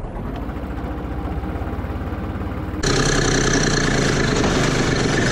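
Tractor engine running under load while a rotary tiller churns soil, with a fast even pulsing from the engine. About three seconds in it cuts abruptly to a louder tractor engine running on the road.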